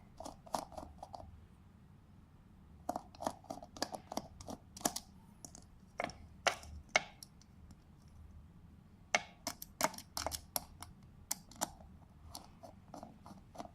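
Clusters of sharp plastic clicks and taps as the plastic crystal-ball dome of a Bluetooth disco light speaker is worked open by hand, with short quiet pauses between the bursts.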